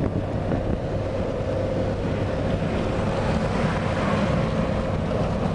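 Steady road and engine noise inside a moving car's cabin: a low rumble with wind noise and a faint steady hum.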